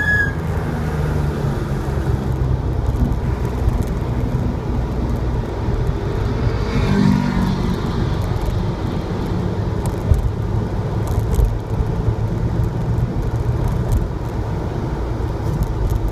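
Porsche 911 Targa's flat-six engine running at low revs on light or closed throttle as the car slows to around 20 mph, heard from inside the cabin with wind and road noise.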